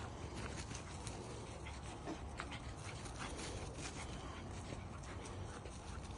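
A husky and a small dog playing chase: panting, and many irregular light patters and rustles of paws running over grass, under a steady low rumble.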